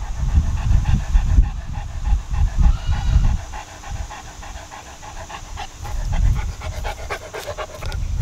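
St. Bernard panting rapidly and steadily with its tongue out, a hot dog cooling itself in the sun. Bursts of low rumble come and go underneath.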